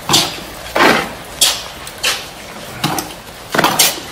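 Footsteps on a concrete floor at a steady walking pace, a step roughly every three-quarters of a second.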